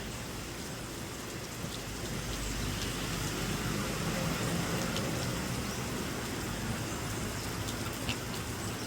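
Steady rain falling outdoors, an even hiss with a few faint drop ticks.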